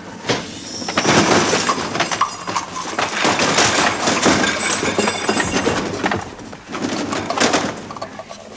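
Loud, dense scuffling and clattering noise with many knocks and bangs, like a violent struggle in an office, easing briefly about six seconds in and picking up again.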